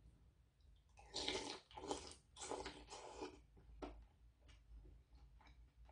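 A person slurping a spoonful of sundaeguk (Korean blood-sausage and pork soup) in four noisy sucks over about two seconds, then chewing with small wet clicks.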